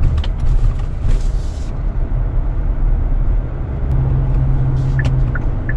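Road and tyre rumble inside the cabin of a moving Kia Sportage NQ5 hybrid, with a short hiss about a second in and a low steady hum near the end. Light ticks come about three times a second near the end.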